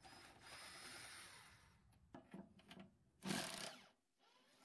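A power tool spinning a socket on a long extension to back out an engine mounting bolt, running for about two seconds, then a few short bursts and a louder burst about three seconds in.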